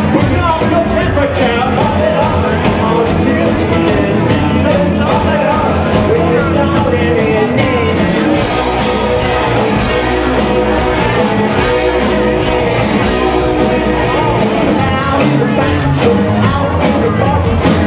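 Live rock band playing a song with a singer over a steady drum beat.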